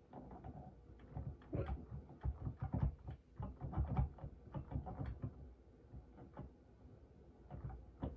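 Light, irregular tapping and clicking of fingers on keys, several taps a second, with a few louder knocks in the first half.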